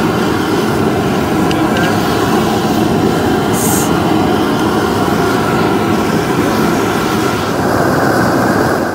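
Steady loud roar of a high-pressure propane jet burner. About three and a half seconds in there is a brief hiss as a beer bottle cap is pried off with a pocket knife's opener.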